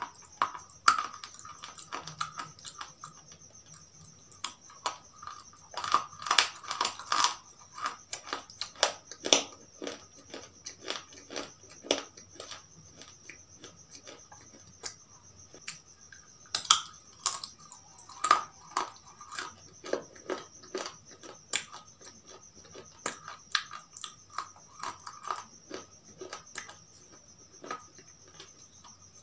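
Close-up chewing and crunching of brittle white pieces: clusters of sharp, crisp cracks, bite after bite, with quieter gaps between.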